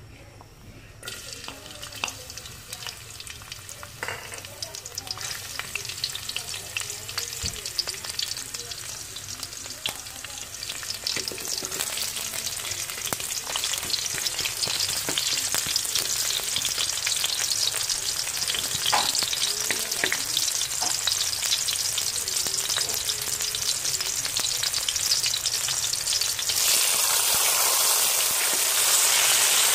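Garlic, red onion and tomato sizzling in hot oil in a metal wok, stirred with a wooden spatula that clicks and scrapes against the pan. The sizzle starts about a second in as the garlic hits the oil and builds steadily, rising again near the end.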